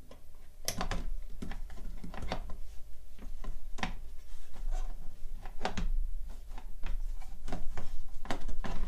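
Irregular clicks and knocks of wiring-harness connectors being handled and pushed onto amplifier boards inside a metal chassis, starting about a second in.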